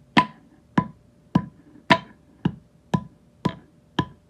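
Background music: a steady percussive beat of sharp wood-block-like clicks, a little under two a second, over a faint held tone.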